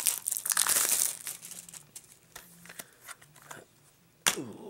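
Plastic shrink wrap being torn and crumpled off a Blu-ray case. The crinkling is densest in the first second and a half, then turns to scattered crinkles, with one sharp click near the end.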